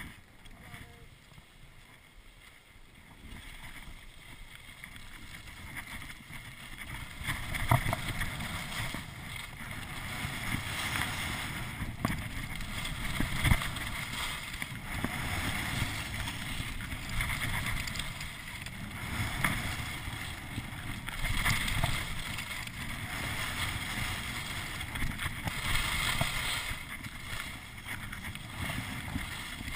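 Skis scraping and carving on packed snow, with wind rushing over the microphone. Quiet for the first few seconds, then the rush builds and swells and fades every couple of seconds as the skis turn.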